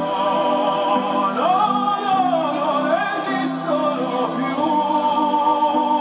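Music with a singing voice, played for a musical fountain show; the voice holds long notes and slides between pitches over a steady accompaniment.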